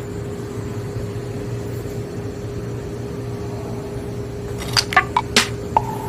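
Steady low hum of an air conditioner unit, powered up and waiting to start, with a faint steady tone over it. Several sharp clicks and knocks come about five seconds in.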